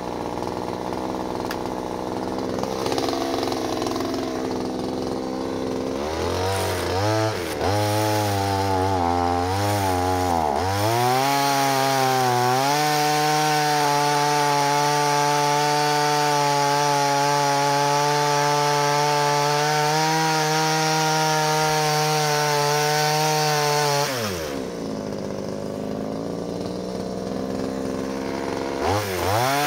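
Small two-stroke pruning chainsaw running: it idles, is revved up and down several times, then holds a steady high speed for about twelve seconds before dropping back to idle, and revs up again near the end.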